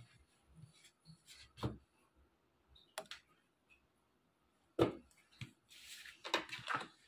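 Tarot cards being handled on a cloth-covered table: scattered light taps and rustles of the deck, then a quick run of card slaps and slides near the end as cards are laid down on the spread.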